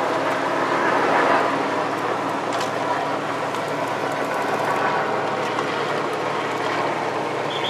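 Steady motor engine hum at an even pitch under a continuous rushing noise, with no speech.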